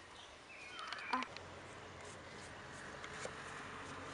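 Faint handling of a plastic motor-oil jug: a few light clicks and taps about a second in, over a low steady background hiss.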